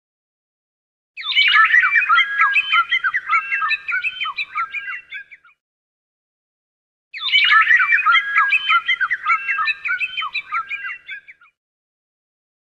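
Sound-effect clip of birds chirping and squawking: many quick overlapping calls. The same run of about four seconds plays twice, about six seconds apart, with dead silence between.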